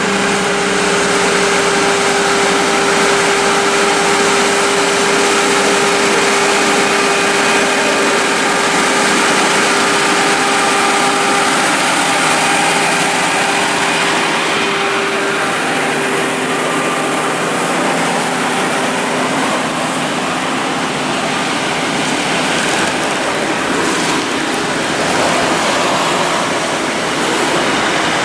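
Volvo FH16 700 heavy-haulage prime mover, with its 16-litre six-cylinder diesel, hauling a CAT 793F mining dump truck on a multi-axle trailer past at close range: a steady, loud rush of diesel engine and tyre noise with passing traffic.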